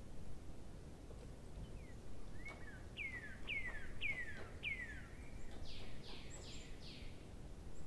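A bird calling: four quick downward-sliding whistles about half a second apart, then four shorter, rougher notes.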